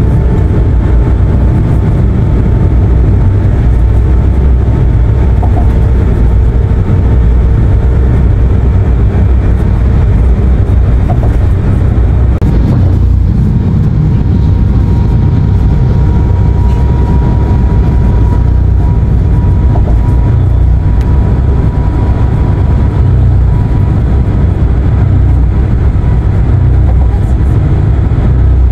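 Steady low road-and-engine rumble inside a van cruising on a highway, with a faint steady high tone over it in the second half.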